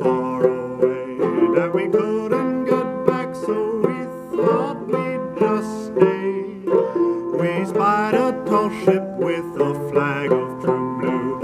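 Fretless minstrel banjo in curly maple played solo, a steady run of plucked and struck notes in an instrumental passage.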